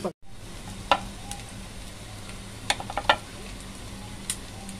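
Potato-and-chicken patties shallow-frying in hot oil in a nonstick pan: a steady sizzle with sharp clicks now and then, and a quick run of them about three seconds in.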